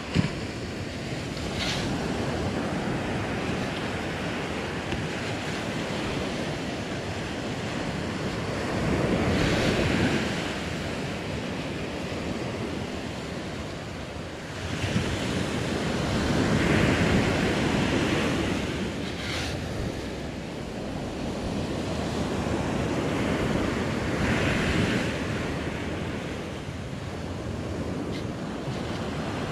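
Ocean surf washing up the beach, swelling about every seven or eight seconds, with wind buffeting the microphone. There is a brief knock near the start and another about two-thirds of the way through.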